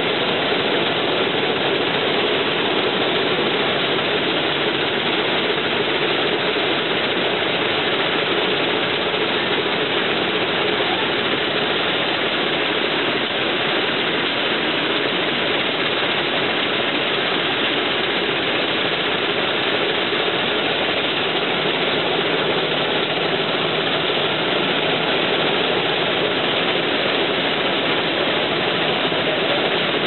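Combine harvester running steadily while harvesting lodged rice, its header reel and auger turning. The engine and threshing machinery make one loud, even noise with no change.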